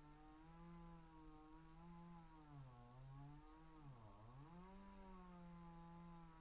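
Chainsaw engine running at high revs, faint. Its pitch sags about three seconds in and drops sharply around four seconds as the saw labours in the cut, then climbs back to a steady high speed.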